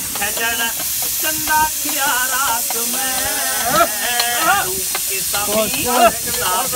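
Steady hiss from a pressure cooker heating on a portable gas stove, with people's voices talking over it.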